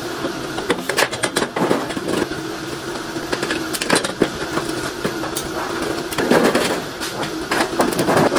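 Hand-lever bench shear cutting thin stainless steel sheet: repeated sharp clacks and metallic rattles of the blade and the flexing sheet, over a steady machine hum.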